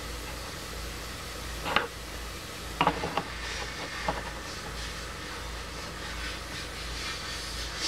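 A few light metal clicks and knocks, one about two seconds in and a quick cluster around three and four seconds: a collet chuck holding a drill bit being pushed into the setting port of a Vevor drill bit sharpener and turned until it locks.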